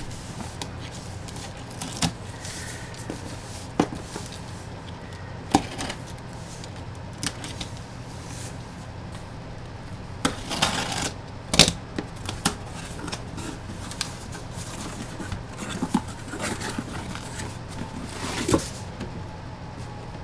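Hands opening a box and handling its packaging: scattered taps, clicks and scrapes, with short rustling bursts about ten and eighteen seconds in, over a faint steady low hum.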